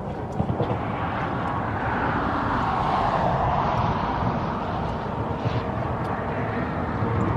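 Highway traffic passing on the bridge: a steady tyre and engine noise that swells as a vehicle goes by about three seconds in, with a low rumble underneath.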